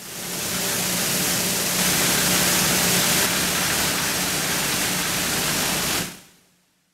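Loud, steady hiss of shredded polystyrene foam flakes pouring down a chute into a separator, over a steady low machine hum. It fades in at the start and fades away about six seconds in.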